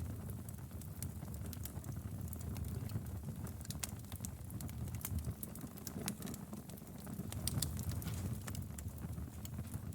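Wood fire burning in a fireplace: a steady low noise from the flames, with frequent irregular sharp crackles and pops from the burning wood.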